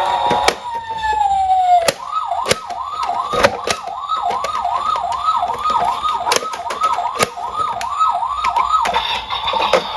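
Emergency-vehicle siren: a slow wail falling away over the first two seconds, then a fast warble cycling about twice a second until near the end. Sharp clicks and knocks are scattered throughout.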